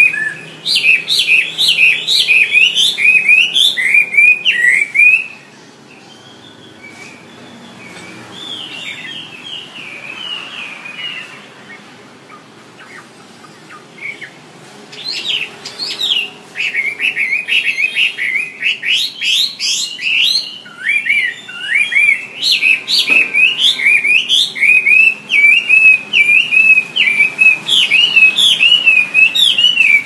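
Chinese hwamei (Garrulax canorus) singing: a loud, fast run of varied rising and falling whistled notes, falling quiet for several seconds after about five seconds with only a softer phrase in between, then resuming loudly about fifteen seconds in.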